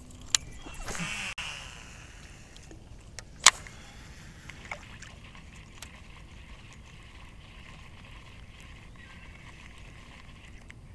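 Quiet, steady outdoor hiss on open water, broken by a few sharp clicks and taps from a baitcasting rod and reel being handled; the loudest click comes about three and a half seconds in.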